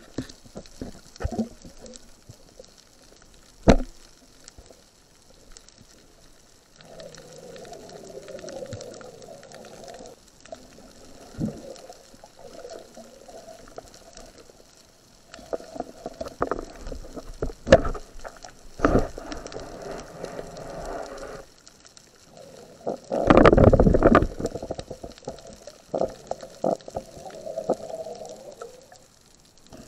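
Underwater noise picked up through a camera housing: water sloshing and bubbling, with scattered sharp knocks. A louder, low rush of water and bubbles comes about two-thirds of the way through.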